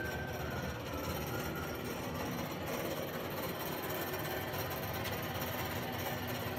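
Harrison 155 centre lathe running under power, a steady fast mechanical rattle from its drive.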